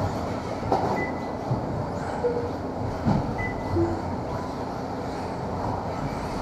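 Several electric radio-controlled race cars running on an indoor carpet track: a steady whirring drone of motors and tyres with scattered clicks and knocks, and a few short high whines.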